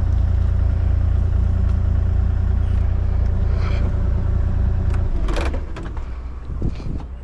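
Large engine running steadily with a low rumble. About five seconds in it drops to a quieter, lower-pitched idle, with a short burst of noise as it changes.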